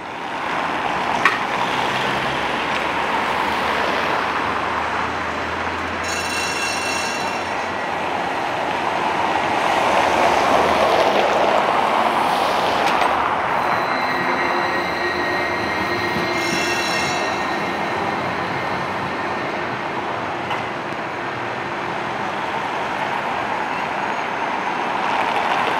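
City trams rolling over street track with a steady rumble. High wheel squeals from the curving rails come in twice, about six seconds in and again around sixteen to seventeen seconds.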